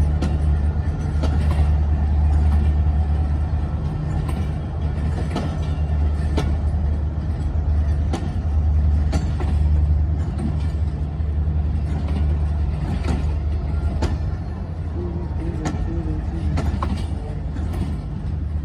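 Passenger train pulling out: a deep diesel engine drone holds steady, with scattered sharp clicks and clanks from the moving train.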